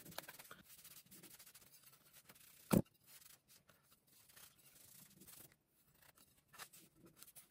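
Faint rubbing and rustling of a paper tissue wiped over an angle grinder's detached wheel guard. A single sharp knock comes a little under three seconds in, and a few light clicks come near the end as the guard is turned in the hands.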